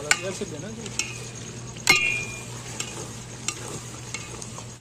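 Long metal spoon stirring mutton stew in a large metal pot, clinking and scraping against the pot about once a second, loudest about two seconds in, over the steady sizzle of the stew cooking.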